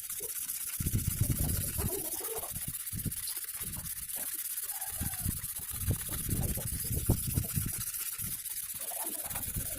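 Sickle blade being sharpened on a whetstone: repeated back-and-forth strokes of steel scraping on stone, over a steady hiss.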